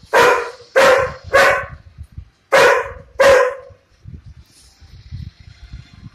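German Shepherd barking protectively: five loud barks, three in quick succession and then two more, followed by quieter low knocking.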